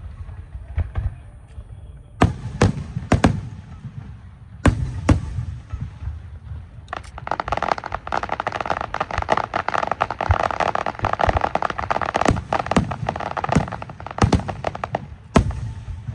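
Electronic fireworks going off: a handful of separate sharp bangs, then dense rapid crackling for about eight seconds, ending with one loud bang.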